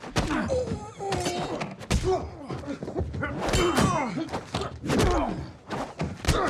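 Fight sound effects: a rapid series of thuds and metallic clangs as blows strike a metal briefcase, some of them ringing, mixed with men's grunts of effort.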